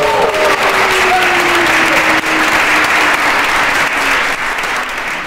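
A room full of people applauding, steady dense clapping that fades away near the end.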